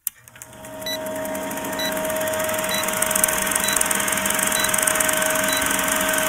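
Film projector sound effect for a countdown leader: a steady mechanical whirr and clatter with a hum, fading in over the first second, and a short high beep about once a second as the numbers count down.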